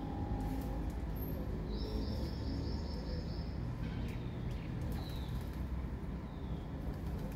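Steady low outdoor rumble with a few high-pitched chirping calls over it. A long trilling call comes about two seconds in, and shorter chirps follow near the five- and six-second marks.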